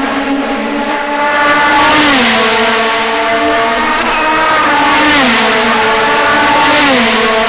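IndyCar race cars' twin-turbo V6 engines passing at speed one after another, each high engine note dropping in pitch as the car goes by, about two, five and seven seconds in.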